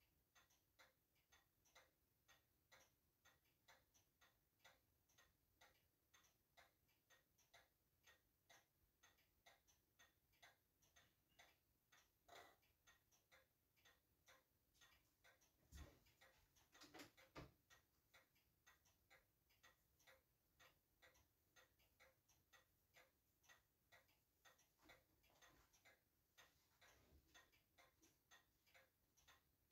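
Faint, steady, even ticking, like a clock or running clockwork. A few louder clicks of metal tweezers on a watch movement come in near the middle.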